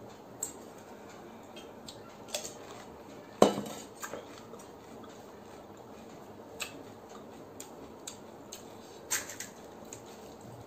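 Scattered light clicks and knocks of eating pani puri by hand: crisp puri shells cracked open and a plastic spoon tapping a plastic plate, with one louder knock about three and a half seconds in.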